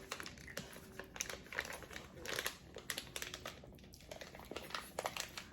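Plastic MRE food packaging crinkling and rustling in the hands, a string of small irregular crackles and clicks.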